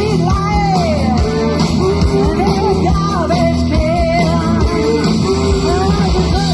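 Live rock music: a band playing with guitar and drums under a singer's voice.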